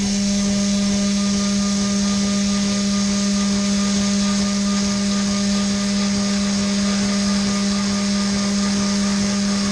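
Haas VF3-SSYT CNC vertical mill roughing at 800 inches per minute with an IMCO 223 end mill: a steady, unchanging cutting hum, one low tone with fainter higher tones over a hiss.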